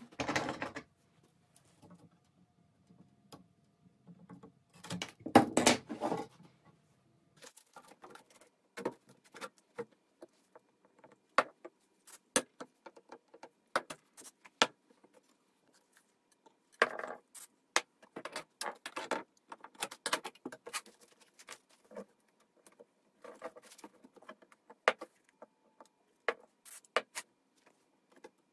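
Thin wooden strips and a wire lampshade frame being handled on a workbench: scattered taps, clicks and light rattles, with a louder burst of clatter about five seconds in.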